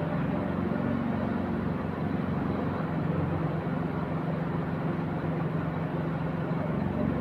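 Diesel engine of a truck-mounted concrete boom pump running steadily as it pumps concrete, a continuous low drone.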